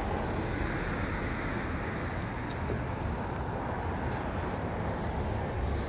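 Steady low rumble of vehicles, with no distinct events.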